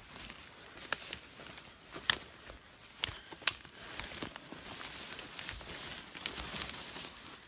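Footsteps pushing through dry grass and brush, with irregular sharp crackles of stalks and twigs snapping underfoot.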